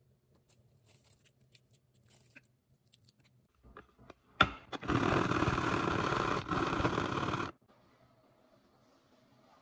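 Daikon radish being shredded on a hand slicer: a few light clicks and a sharp knock, then a dense scraping that runs for just under three seconds with a short break near its middle.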